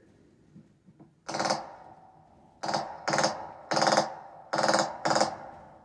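Glock 17 pistol firing six shots, one alone and then several in quick pairs, heard as playback through a TV speaker.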